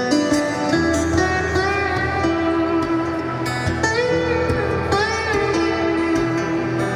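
Live rock band playing an instrumental break, with a guitar lead whose notes bend up and down over the band.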